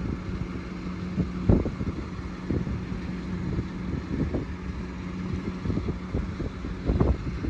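An engine running steadily at an even pitch, with wind gusting and buffeting the microphone.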